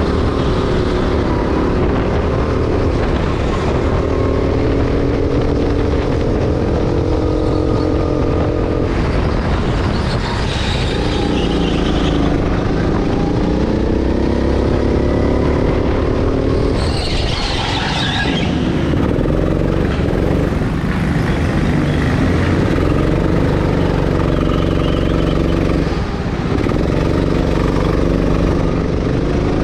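Go-kart motor running from on board the kart, its pitch climbing and dropping again and again as the kart speeds up along straights and slows for corners. A short burst of hiss cuts across it about seventeen seconds in.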